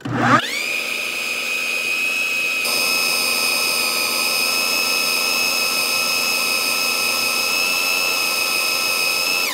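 Electric blender motor running at high speed as it purées ground meat and tapioca into meatball paste. It spins up quickly at the start, holds a steady high whine, and stops right at the end.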